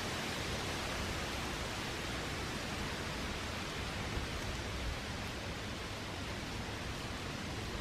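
Steady, even hiss of outdoor background noise with no distinct event.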